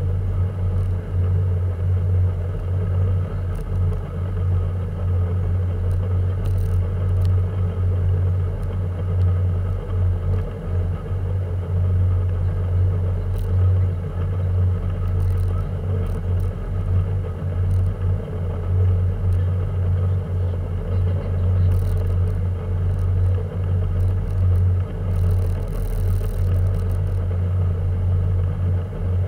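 Bowrider speedboat running at cruising speed: a steady low engine rumble mixed with wind over the microphone, rising and falling a little in loudness.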